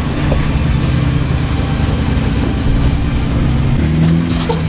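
Off-road 4x4's engine running steadily with a low hum, the pitch rising a little about four seconds in, and a brief sharp noise just before the end.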